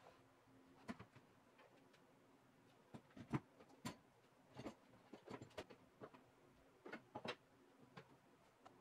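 Sparse light clacks and knocks of wooden and plastic items being handled and lifted off a wooden wall rack, about ten small taps spread through, the loudest a little past halfway in.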